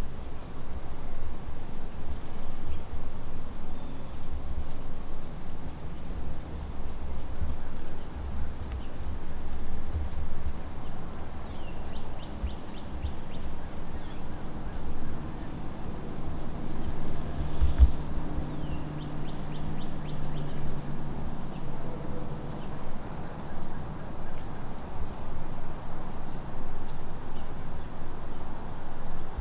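Outdoor ambience with wind buffeting the microphone in gusts. Faint bird calls come through, including two short, rapid chattering series near the middle. A low, steady distant hum runs for several seconds in the second half.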